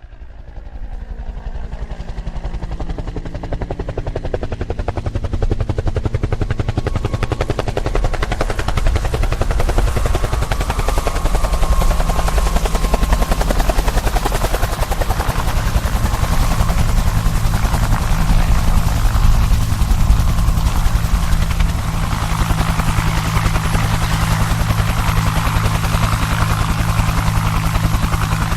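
Helicopter sound effect: fast rotor-blade chop over a low engine hum, fading in at the start and growing louder over the first several seconds.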